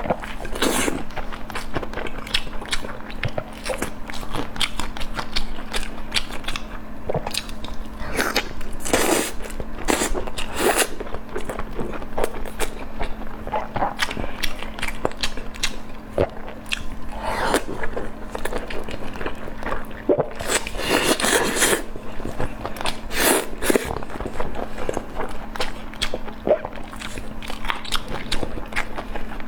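Close-miked eating: a person biting and chewing food with irregular wet clicks and crunches.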